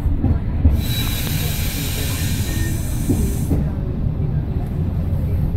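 Class 115 diesel mechanical multiple unit running along the line, heard from the driving cab as a steady low rumble. About a second in, a hiss starts and lasts roughly three seconds before cutting off.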